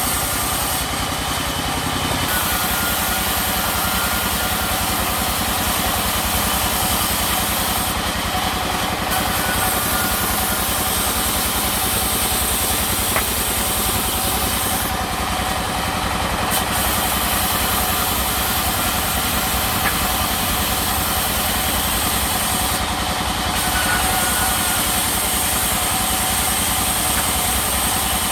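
Sawmill machinery running with a steady, unbroken mechanical drone.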